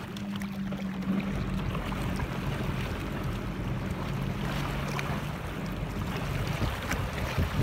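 Sea-Doo jet ski engine running at low throttle as the craft moves off slowly, a steady low hum, with water and wind noise on the microphone.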